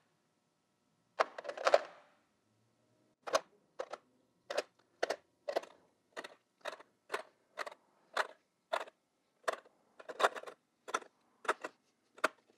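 Chrome sockets being handled and set into a plastic socket tray: a brief rattle of handling, then a regular series of sharp clicks, about two a second.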